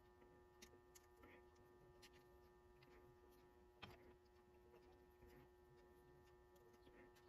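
Near silence: a faint steady electrical hum, with a few faint clicks of small metal engine parts being handled and fitted together, the clearest about four seconds in.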